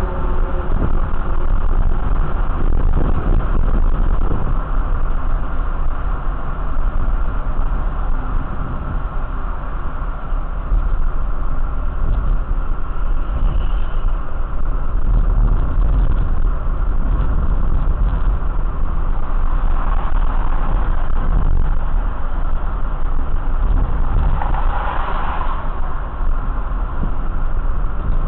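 Steady low rumble of a running motor vehicle, with a brief higher-pitched sound about 25 seconds in.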